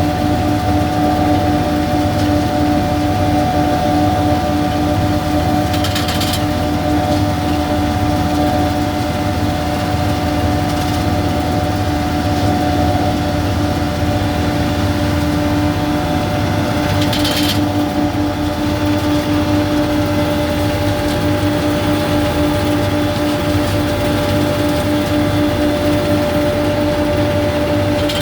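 Braud grape harvester running steadily, its engine and machinery giving a constant, even hum. Two brief sharp rattles break through, about a fifth of the way in and again a little past halfway.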